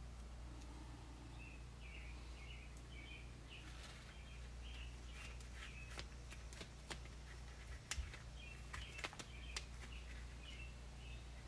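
Light taps and clicks of EVA-foam prop pieces being handled and pressed together on a wooden workbench, more of them from about halfway through, over a steady low hum and faint repeated high chirps.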